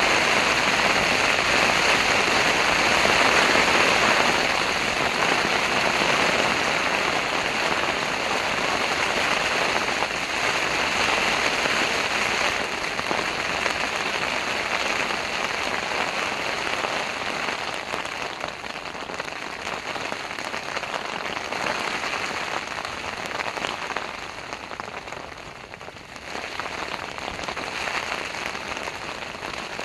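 Heavy rain falling on tent fabric, a dense steady hiss that eases for a moment near the end before picking up again.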